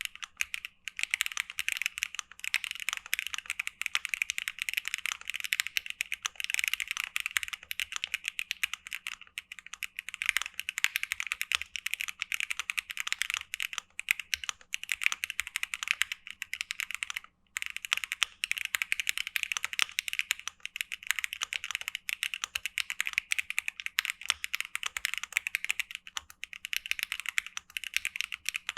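Mechanical keyboard typing on stock, factory-lubed Wikuo Harmony linear switches in a gasket-mount Monsgeek M7W with a polycarbonate plate and ABS keycaps: a fast, continuous run of keystrokes with one short pause about 17 seconds in.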